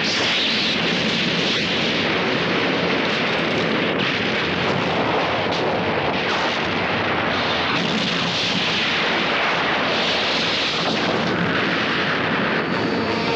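Cartoon sound effect of the space battleship Argo's main cannon blast and the explosion it sets off: a long, steady rush of explosion noise. Music comes in near the end.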